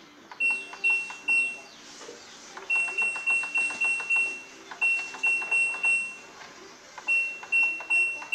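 LG washing machine's control panel beeping: a high electronic beep repeated in runs of three to six, with short pauses between runs, over faint clicking.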